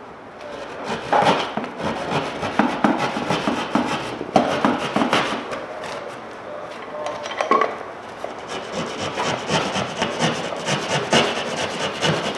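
A hand tool scraping and cutting along the ragged bottom edge of a sheetrock wall in a run of irregular rasping strokes. The cut line is being trimmed straight so a new sheetrock piece will fit.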